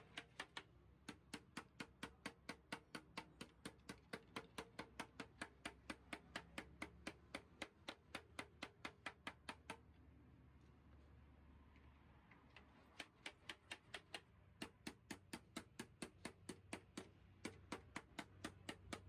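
Light, sharp clicks or taps, evenly spaced at about four a second. They stop for about three seconds midway, then resume.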